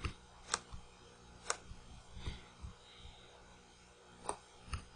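A few short, sharp clicks of a computer mouse button, spaced apart, with quiet room tone between them; two come close together near the end.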